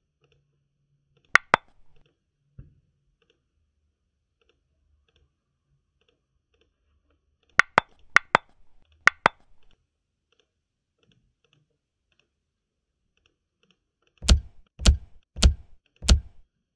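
Computer mouse button clicks: a quick press-and-release pair about a second and a half in, three more such pairs around eight to nine seconds, then four evenly spaced, heavier clicks with a dull thud near the end.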